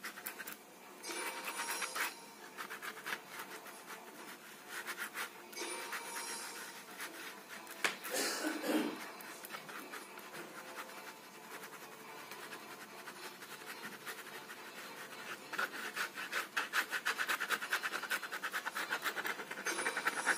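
Ballpoint pen scratching across carpet pile in rapid repeated drawing strokes, coming in patches and then thicker and louder over the last few seconds.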